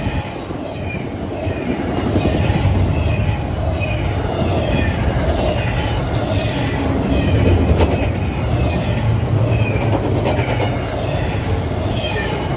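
Double-stack container freight train rolling past close by: a steady low rumble of wheels on rail, with repeated short clatters from the wheel sets and a brief sharp clank a little past halfway.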